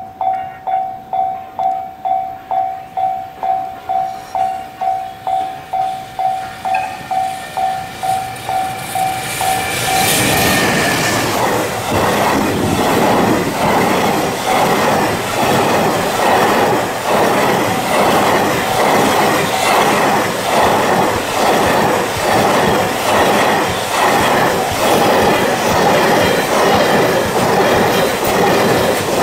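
A Japanese level-crossing warning bell dings about twice a second. About ten seconds in, a container freight train hauled by an EF210 electric locomotive arrives and passes close by, its wagons rumbling and clattering over the rail joints; the clatter covers the bell until near the end.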